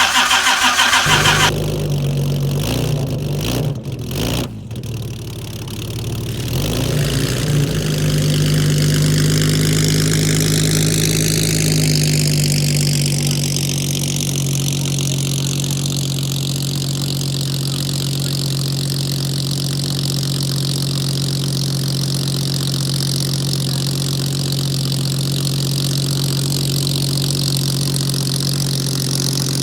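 Jaguar 3.8-litre XK straight-six being cranked on the starter and catching about a second in. It runs unevenly for a few seconds, then settles into a steady idle, with a high whine slowly rising in pitch. This is the first start of the restored engine.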